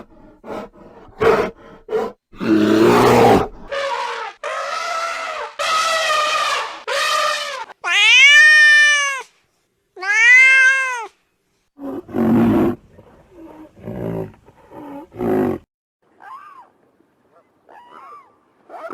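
Domestic cats meowing: a series of separate calls of varying length, the two loudest long, drawn-out meows rising and falling in pitch near the middle, with shorter, quieter calls after them.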